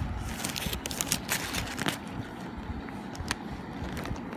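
Paper bag and cardboard fry carton rustling and crinkling as the fries are handled, with a cluster of sharp crackles in the first two seconds that then thin out, over a steady low rumble.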